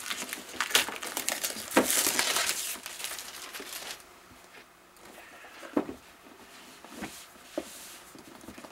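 Clear plastic shrink-wrap crinkling and tearing as it is pulled off a cardboard product box. After about three and a half seconds it gives way to a few light taps as the box is handled.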